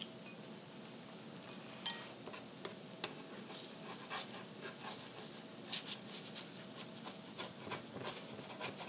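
Cheese-filled tortillas frying on a flat-top griddle: a steady sizzle with scattered crackles and pops. A spatula scrapes and taps on the griddle now and then.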